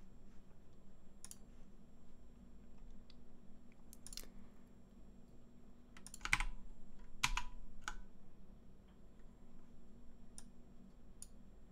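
Computer keyboard typing: a few scattered keystrokes, with two louder clacks about a second apart midway, over a low steady hum.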